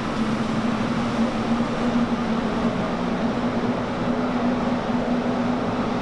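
Industrial powder-coating curing oven running with its doors open: a steady loud rush of air with a low steady hum, cutting in suddenly at the start.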